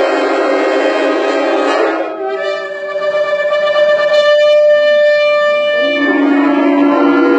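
A shofar being blown in long sustained blasts. A low, buzzy note breaks off about two seconds in, then a higher, clearer note is held until near six seconds, then the horn drops back to a lower note.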